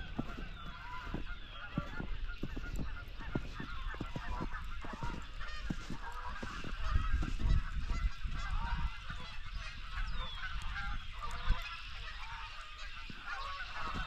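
A flock of birds calling over each other in a busy, continuous chatter, with scattered low thumps underneath.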